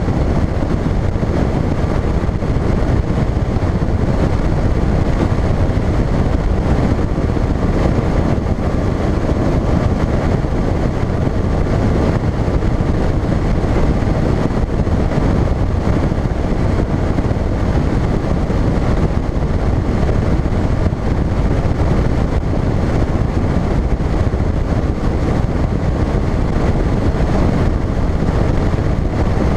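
Phoenix bass boat running at speed on open water: a loud, steady rush of wind on the microphone over the noise of the outboard motor and hull.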